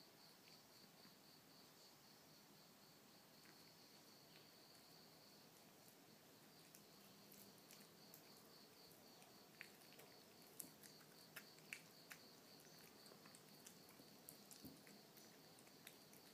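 A kitten chewing a chunk of wet canned cat food from a plate: faint, scattered sharp clicks of chewing and licking, from about halfway on. Behind it, a faint, steady, high pulsing insect trill.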